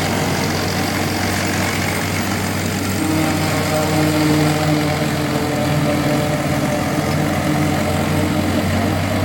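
Forage chopper running while harvesting corn for silage: a steady, heavy engine-and-machinery drone that holds level throughout.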